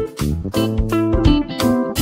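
Background music: a guitar-led tune with a beat.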